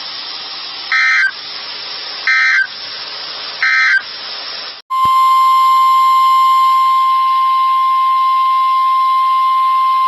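Weather-radio emergency alert sequence: radio hiss broken by three short, buzzy bursts of digital alert code about a second and a half apart. About five seconds in, a steady, high-pitched warning alarm tone starts and holds, signalling that a new warning is about to be read.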